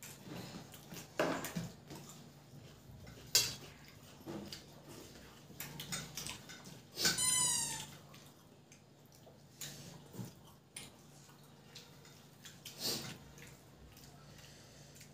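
Hands mixing rice and curry on steel plates: soft wet squelching with scattered clicks of fingers against the metal. About seven seconds in, a brief squeak slides downward in pitch.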